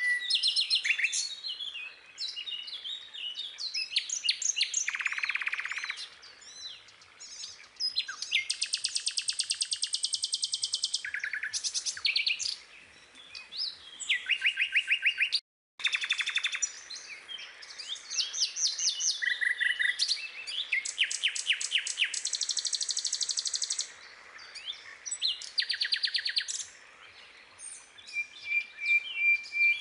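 Birds singing and chirping, with many fast trills of rapidly repeated high notes and short chirps. The sound cuts out completely for a moment about halfway through.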